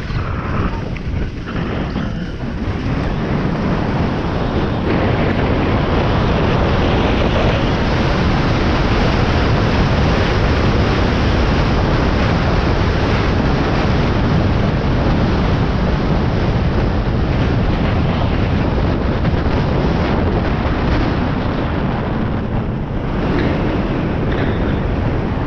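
Wind rushing over the camera microphone while skiing downhill at speed, mixed with the hiss of skis running over groomed snow. It builds over the first few seconds and then holds steady.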